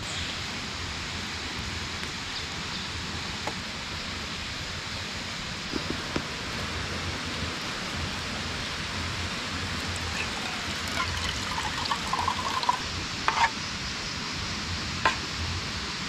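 Steady rush of a river. Partway through, water runs from a plastic jug's tap into a cup, and there are a few light clicks.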